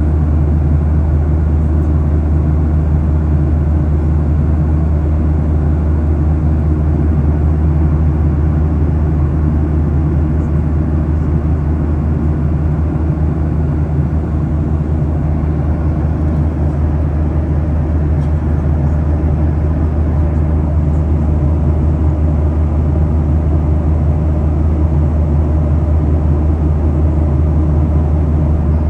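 Steady in-flight cabin noise of a passenger jet airliner: a constant low engine and airflow hum that does not change.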